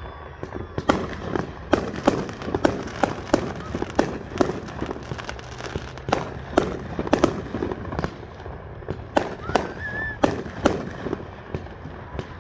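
Aerial fireworks bursting overhead: a rapid, irregular string of booms and pops, several a second, with a short lull a little past the middle before more bursts near the end.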